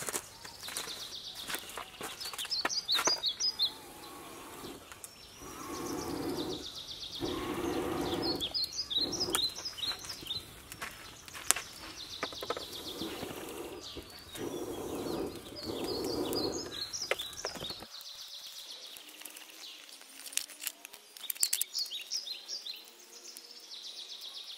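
Small birds chirping in about four short bursts of quick high notes, over scattered sharp crackles of an open wood cooking fire. A single sharp knock about halfway through, as a stick is pushed into the fire.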